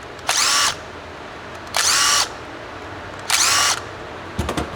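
Cordless power driver spinning out carburettor top-cap screws in three short bursts about a second and a half apart, each with a whine that rises and falls as the motor spins up and stops. A few sharp clicks near the end.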